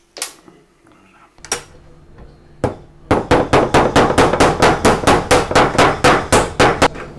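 Hammer blows on a 1 mm stainless-steel sheet clamped in a bench vice. A few separate strikes come first, then from about three seconds in a fast, even run of about five blows a second that stops shortly before the end.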